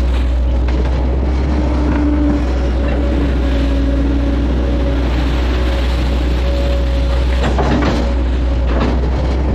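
Hitachi hydraulic excavator's diesel engine running steadily under digging load, with a whining tone that comes and goes as the boom and bucket are worked. A few short knocks come near the end as the bucket dumps its mud.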